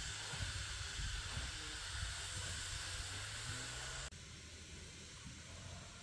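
Faint steady background hiss with a low rumble, dropping a little quieter about four seconds in.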